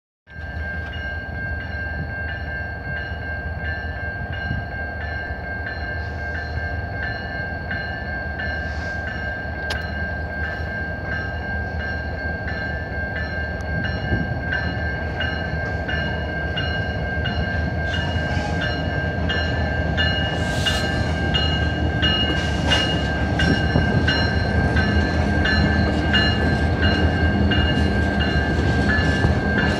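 Railroad crossing bell ringing in a steady, even rhythm over the low rumble of two CN EMD SD70M-2 diesel locomotives, which grows louder as they come up to and onto the crossing.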